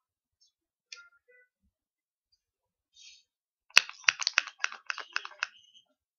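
Hand-held spray bottle of hair product spritzed onto a lock of hair: a quick run of about ten sharp spray strokes, starting a little past the middle and lasting under two seconds.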